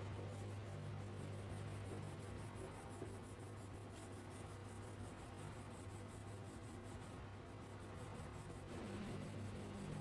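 Crayon rubbing back and forth on paper as an area is coloured in, a faint steady scratching over a low hum.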